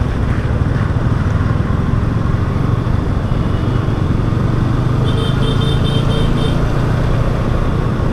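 Yamaha R15 V3's single-cylinder engine running steadily while riding slowly in traffic, mixed with road and wind noise. A quick run of about six high beeps sounds a little after five seconds in.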